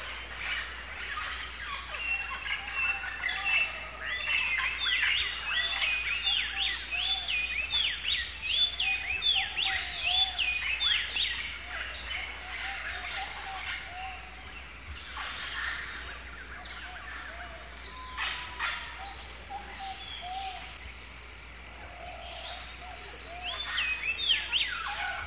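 Several birds calling and singing together, a busy mix of quick repeated chirps and whistles of different pitches. It thins out around the middle and picks up again near the end.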